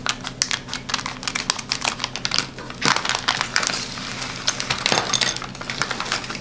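Anti-static plastic bag crinkling and rustling as it is cut open with scissors and the drone frame kit's parts are pulled out, with many small sharp clicks.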